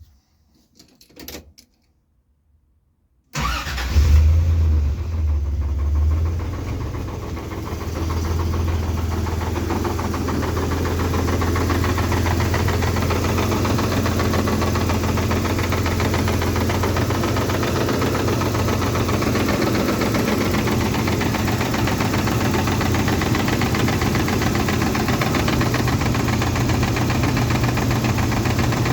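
Toyota 3VZ-E 3.0-litre V6 starting about three seconds in, running fast for a few seconds and then settling into a steady idle with a knock.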